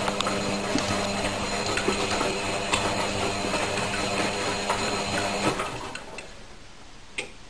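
A steady mechanical hum and buzz from a small motor-driven machine, which cuts off about five and a half seconds in.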